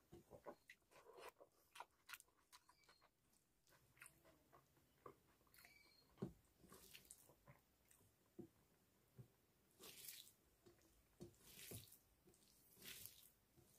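Faint close-up eating sounds: a person chewing mouthfuls of dal and rice eaten by hand. There are scattered wet mouth clicks and lip smacks, and a few soft swishes.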